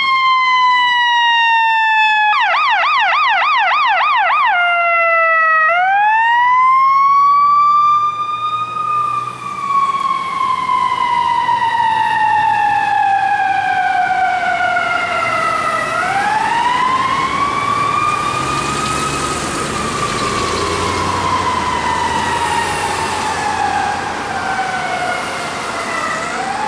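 Fire engine siren wailing, its pitch sliding slowly down. About two and a half seconds in it switches to a fast warbling yelp for two seconds, then goes back to wails that rise quickly and fall away slowly. The truck's engine is heard underneath as it passes.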